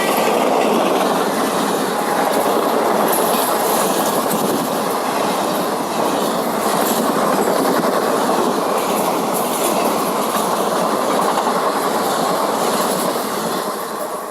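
Coaches of an express train rushing past at speed: a loud, steady rush of wheel-on-rail noise with clickety-clack over the rail joints, easing off near the end as the tail of the train goes by.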